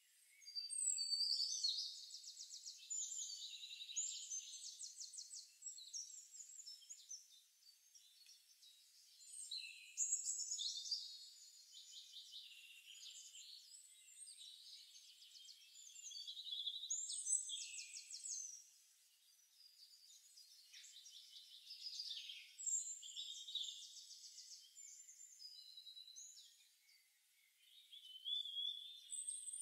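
Birdsong from a calm forest ambience track: songbirds singing fast trills of rapidly repeated high notes, in phrases a few seconds apart with softer chirps between.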